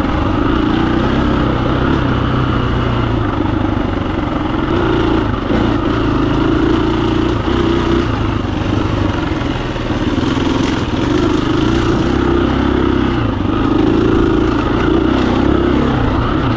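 KTM 350 EXC-F dirt bike's single-cylinder four-stroke engine running steadily as the bike is ridden along the trail, its note wavering slightly with the throttle.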